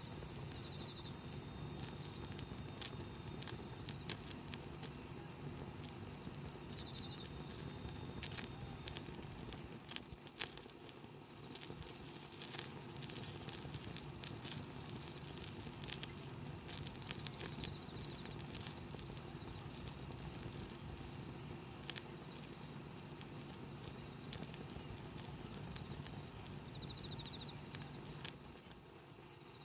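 Wood campfire crackling, with scattered sharp pops over a steady low hum. A short hiss sounds at the start.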